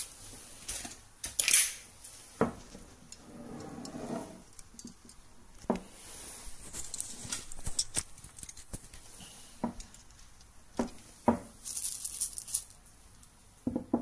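A few sharp, separate knocks and clinks of a spoon and coffee beans against a stone mortar, between short rustles of a paper coffee bag.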